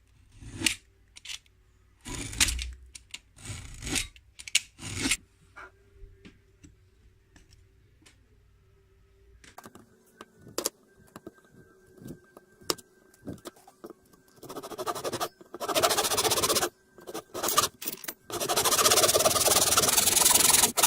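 Scraping and rubbing of tools and wood: a few short scrapes in the first five seconds, scattered clicks, then longer continuous scraping in the second half, loudest near the end.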